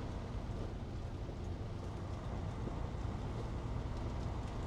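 Steady low drone of a box truck's engine and road noise heard from inside the cab.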